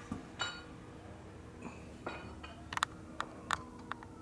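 Light metallic clinks and taps as small metal parts are handled and set down, several sharp ones in the second half, some ringing briefly, over a faint steady hum.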